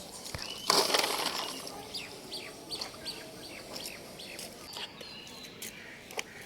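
Small birds chirping in quick, short downward notes, repeated many times. A brief loud rushing or scraping noise comes about a second in.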